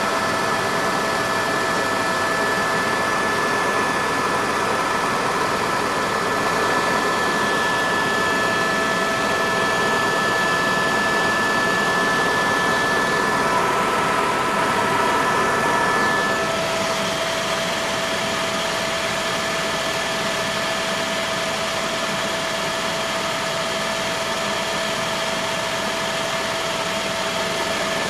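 Helicopter turbine engine and rotors heard inside the cabin in flight: a steady loud noise with a few constant whining tones. About halfway through, the higher tones fade out, a lower tone takes over and the noise drops slightly.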